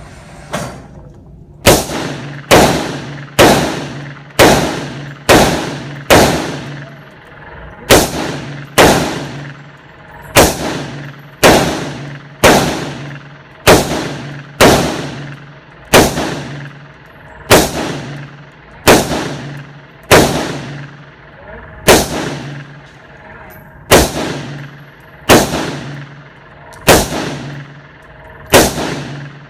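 Gunshots fired slowly in semi-automatic, about 28 single shots roughly one a second, each a sharp crack with a ringing tail. There is a short pause near the 22-second mark, and a steady low hum runs underneath.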